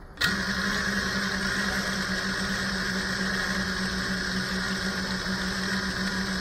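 FPV quadcopter's brushless motors starting abruptly as it is armed, then spinning at idle on the ground with a steady hum.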